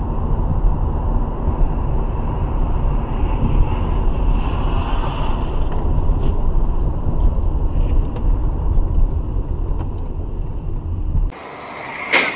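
Steady low road and engine rumble inside a moving car, picked up by a dashcam on a highway. Near the end it cuts off abruptly to a quieter hum, and a single sharp knock follows just before the end.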